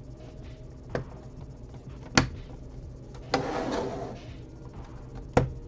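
LEGO bricks clicking and knocking as pieces are pressed onto a build: three sharp clicks, the last two loudest, with a brief rustling scrape of hands and parts about halfway through.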